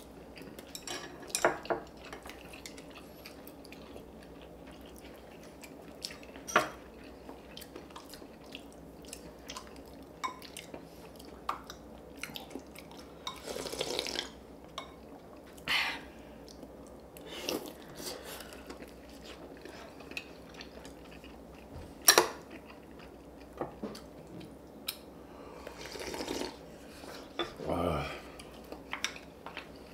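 Spoons and chopsticks clinking now and then against bowls and dishes, with eating sounds between: chewing and the sipping of hot soup.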